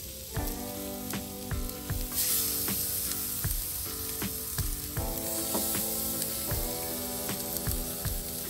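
Marinated tilapia sizzling on the hot grates of a portable gas grill, the hiss growing stronger about two seconds in. Soft background music with held chords and a light beat plays underneath.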